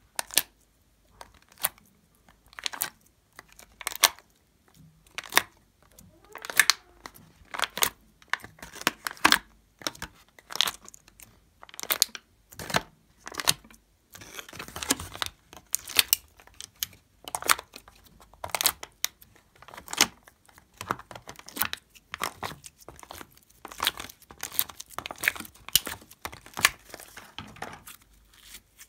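Sticky slime and gel pieces peeled off and pressed against plastic sheets and cups: a long run of sharp crackles and sticky pops, about one or two a second, thickest in a dense crackling stretch around the middle.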